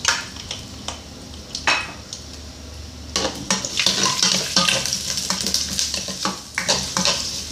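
Onions and chopped garlic frying in hot oil in a stainless steel pan, with a utensil clicking and scraping against the pan as they are stirred. A few separate clicks come first; about three seconds in the sizzle grows louder and the stirring clicks come thick and fast.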